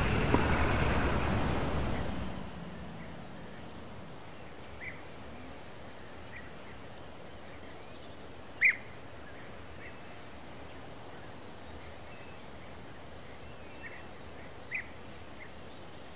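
Outdoor nature ambience: a steady faint hiss with a faint high insect trill and a few short bird chirps, the loudest about halfway through. A louder ambience fades out over the first couple of seconds.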